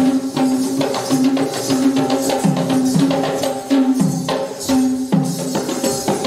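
Live Kandyan drumming on geta bera, the double-headed Sri Lankan drum, playing a fast, busy rhythm of strokes to accompany Kandyan dance.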